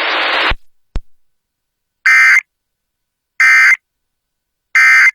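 Emergency Alert System end-of-message code: three short bursts of digital data tone, about 1.3 seconds apart, marking the end of the alert. Before them a steady hiss cuts off about half a second in, followed by a single click.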